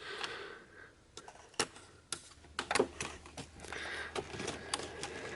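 Several sharp plastic clicks with handling rustle as the locking tabs on the ignition coil connectors of a BMW N54 engine are pulled up one after another.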